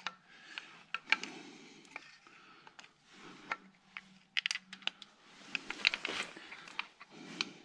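Hand tools and metal timing-case parts clicking, clinking and scraping as timing-chain guides and tensioners are fitted on a BMW N62 V8, with scattered sharp clicks and short bursts of rustling handling noise between them.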